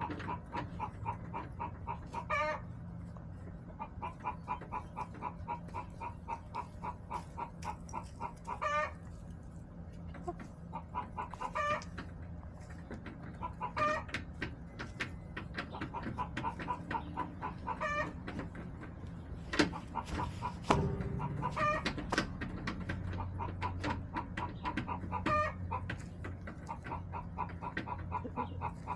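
Backyard hens clucking in quick runs of clucks, with a louder, drawn-out hen call every few seconds. Two sharp knocks come a little past the middle.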